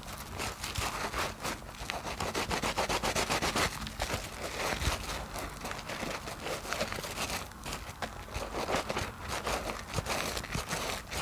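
Hands squeezing and rubbing foam-soaked kitchen sponges in thick soap suds: a steady, wet squishing made up of many fine crackles, rising and falling as each squeeze goes in.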